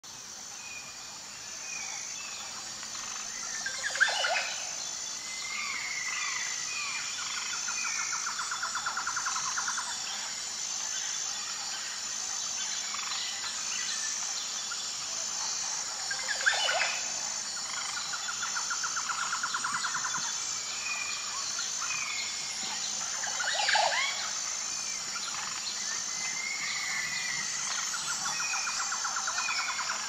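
Outdoor bird chirps and calls over a steady, evenly pulsing high-pitched drone. A rapid trill comes three times, and a sharp, louder call sounds three times, roughly every ten seconds.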